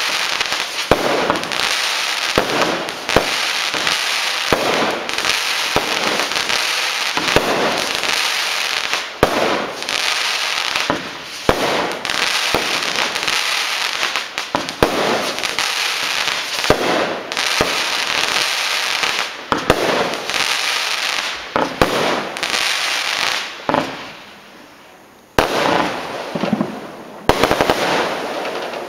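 Pyro-Art PMF modular fireworks battery (Fusion) firing shot after shot in a rapid, continuous run of launches and bursts. Near the end the firing dies away into a lull of about two seconds, then starts again.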